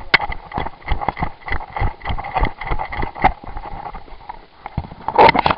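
Quick footsteps crunching over gravelly dirt in an irregular run of sharp steps, with a denser flurry of scuffs and clicks near the end as the runner drops into a crouch.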